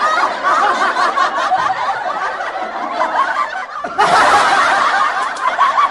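People laughing and snickering without a break, louder from about four seconds in.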